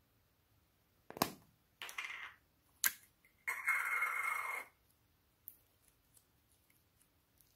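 Plastic slime containers handled and opened: a sharp crack about a second in, a short rasp, another sharp crack near three seconds, then about a second of steady scraping from the plastic lid and container.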